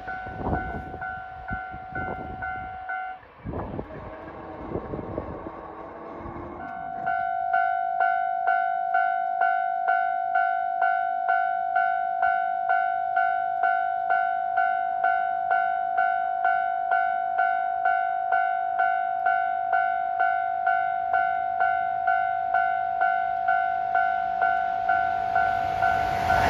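Railway level crossing alarm ringing: a steady pitched electronic tone that pulses about twice a second. It breaks off about three seconds in, then starts again louder a few seconds later and keeps ringing.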